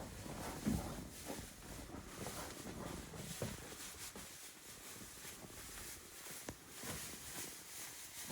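Goats moving about: scattered light knocks and rustling, with one sharper knock about a second in.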